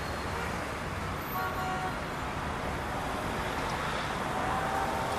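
Steady outdoor city ambience, mostly distant traffic noise, with a couple of faint short tones, one about one and a half seconds in and one near the end.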